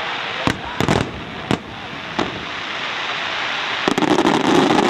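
Pains Fireworks aerial shells bursting in a display: a continuous crackling hiss with several sharp bangs in the first two and a half seconds, then a louder, denser barrage of crackling and bangs from about four seconds in.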